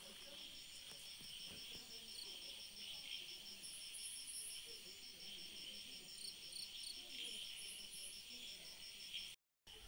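Crickets chirping at night: a fast, even pulsing trill, with other insects calling in faint higher bursts. The sound cuts out completely for a moment near the end.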